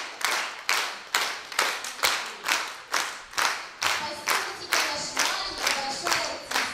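A group of people clapping in time, in unison, about two claps a second, with a short reverberant tail after each clap.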